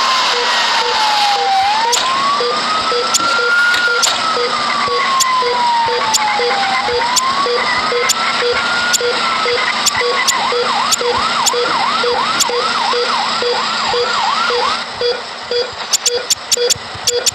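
Ambulance siren sounding a slow wail, its pitch gliding down and up over about three seconds each way. About ten seconds in it switches to a fast yelp, breaks off briefly near the end, then starts again. A regular light ticking, about two a second, and steady background noise run beneath it.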